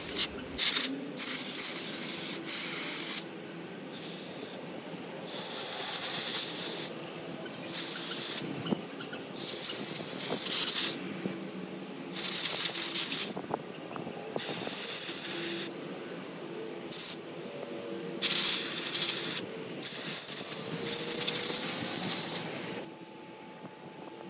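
Compressed-air blow gun fired in about a dozen short hissing blasts, each lasting one to two seconds and starting and stopping abruptly, blowing out and drying freshly cleaned carburetor jets and parts. The blasts stop shortly before the end.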